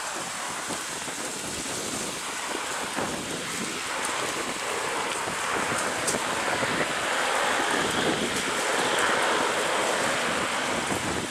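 Robinson R44 helicopter running on the ground with its rotor turning, heard as a steady rushing noise mixed with wind on the microphone, growing a little louder about two-thirds of the way in.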